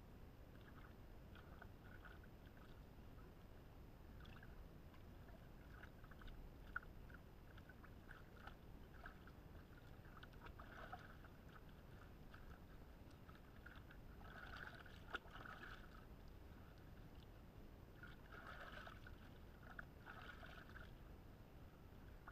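Faint splashing and sloshing of shallow lake water around a person wading knee-deep, with a few sharper splashes about 7, 15 and 20 seconds in.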